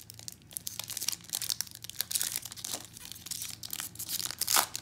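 Foil trading-card pack wrapper being torn open and crinkled by hand, an irregular run of crackles and rips that is loudest just before the end.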